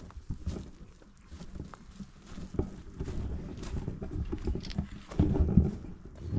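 Footsteps and rustling on the ground: irregular thumps, heaviest about five seconds in.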